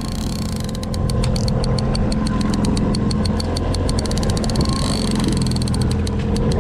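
Boat engine running steadily. Over it, a line-counter trolling reel clicks rapidly and evenly as it is cranked against a hooked king salmon, starting about a second in and quickening toward the end.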